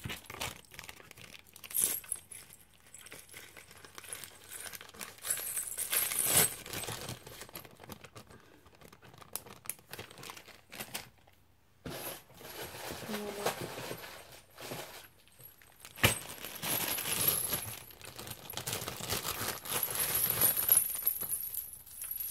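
Bunches of resin charms on metal rings, with small bells attached, jangling and clinking as they are handled, on and off with a few sharp clacks, along with some rustling.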